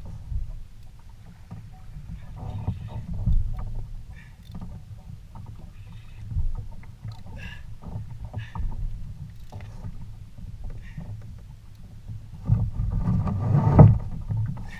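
Knocks and bumps on a plastic fishing kayak as the angler handles a freshly landed fish and gear, over a steady low rumble of wind and water on the hull. A louder run of knocking and rustling comes near the end.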